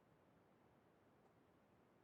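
Near silence: faint steady background hiss of a muted or idle online lecture microphone.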